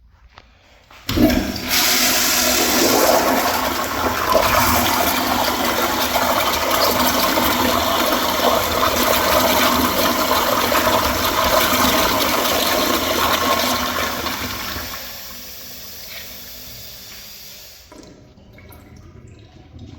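A 2000s Crane Plumbing toilet flushing. A loud rush of water starts suddenly about a second in and holds steady for about thirteen seconds, then falls to a quieter wash and cuts off abruptly near the end.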